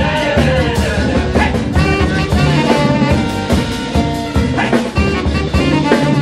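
Hot swing band playing an instrumental passage live, with saxophone, fiddle, acoustic guitar, bass and drums over a steady swing beat.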